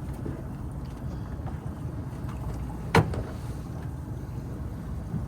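Steady low rumble of a fishing boat at sea, with one sharp knock about three seconds in.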